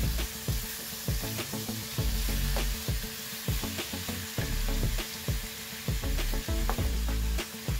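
Cubed pork frying in oil in a nonstick pan, a steady sizzle, while a wooden spatula stirs and turns the pieces with frequent scraping and tapping clicks against the pan.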